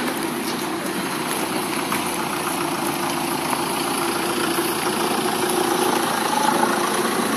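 A heavy truck's diesel engine idling steadily, a constant low running sound under a wide noisy hiss.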